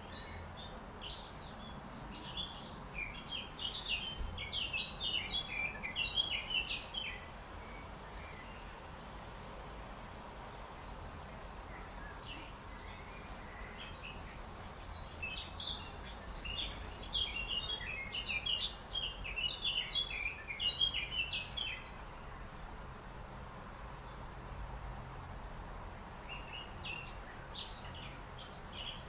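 Small birds chirping and twittering in bouts of rapid high notes, each bout several seconds long with pauses between, over a steady low background rumble.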